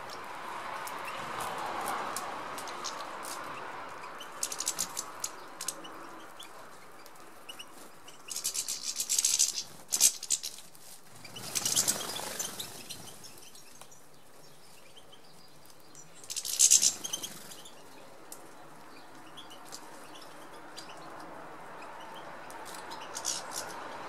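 European goldfinches at a seed-covered bird table: several short bursts of high, sharp twittering calls, with wing flutters as birds land and take off, over a steady background hiss.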